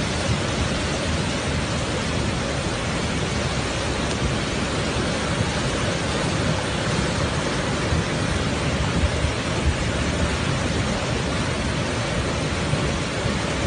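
Muddy floodwater rushing in a fast torrent: a steady, unbroken rush of water with a deep rumble underneath.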